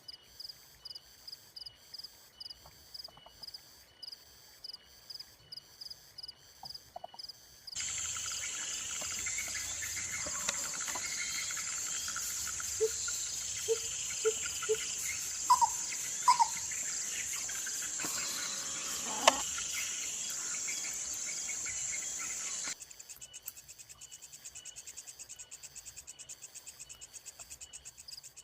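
Insects calling: a high cricket-like chirp pulsing about twice a second, which switches abruptly to a louder, steady, high-pitched insect buzz with a few short calls mixed in, then switches back to the pulsed chirping near the end.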